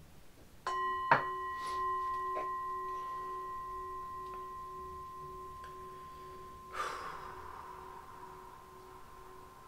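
A struck metal chime rings out once, under a second in, with a clear bell-like tone that fades slowly over the following seconds. A few light taps come in the first two seconds, and a brief breathy rush of noise about seven seconds in.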